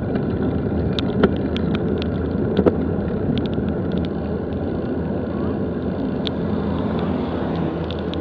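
Bicycle rolling along a dirt road: a steady rumble of tyres and wind, with scattered sharp clicks and rattles from the bike.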